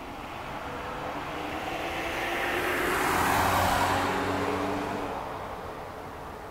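A vehicle passing by: a rushing noise with a low hum that swells to its loudest about three and a half seconds in, then fades away.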